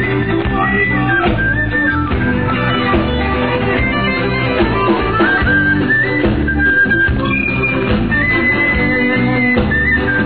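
Live rock band playing an instrumental passage between sung lines: guitars and rhythm section, with a lead melody line moving in steps above them.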